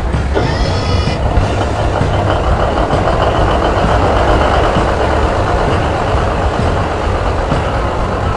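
Heavy diesel machinery running steadily with a dense, rumbling engine noise, with a brief high-pitched squeal about half a second in.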